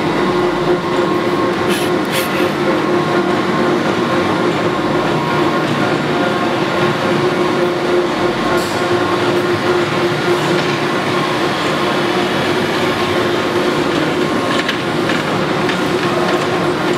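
A Lodge & Shipley 2516 oil-country hollow-spindle lathe with a 20 hp drive, running under power. It makes a loud, steady machine noise with a constant whine in it.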